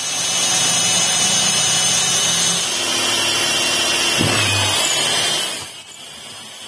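Electric drill boring into a hardwood shovel handle, with a steady high motor whine over the bit's cutting noise. The pitch sags briefly about four seconds in, and the sound falls much quieter shortly after five seconds.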